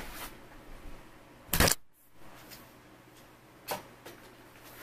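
Two sharp clicks or knocks from handling objects: a loud one about one and a half seconds in and a smaller one about two seconds later, with faint rustling between.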